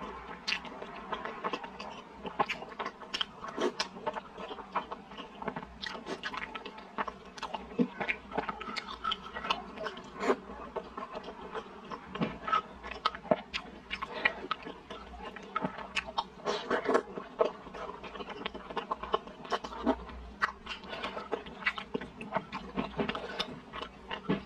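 A person biting and chewing soft steamed baozi dipped in chili sauce: many small, irregular mouth clicks and smacks.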